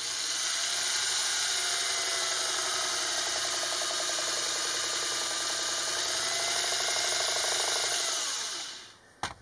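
Electric drill running steadily as its bit bores into the plastic center console, then winding down and stopping near the end.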